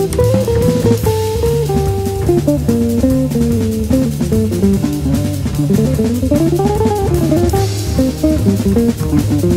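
Background music: guitar and bass over a steady drum-kit beat, with a melody line that slides up and then down about six to seven seconds in.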